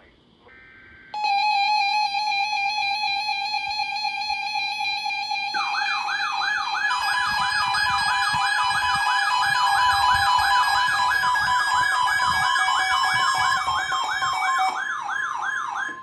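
Emergency Alert System tones: a brief chirp of the digital header data, then the steady two-tone EAS attention signal. About five seconds in, a fast, loud siren-like warbling alert tone joins it. Near the end a steady 1050 Hz weather-radio tone sounds briefly before the tones cut off.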